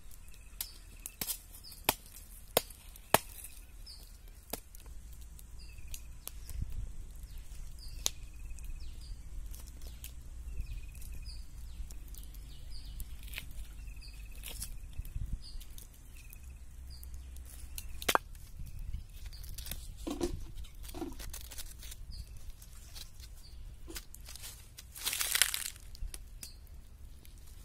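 Machete chopping and scraping at a roasted cow leg on a wooden block: sharp knocks, several in quick succession at first and then scattered singly, with a longer scrape near the end. Short high chirps repeat in the background.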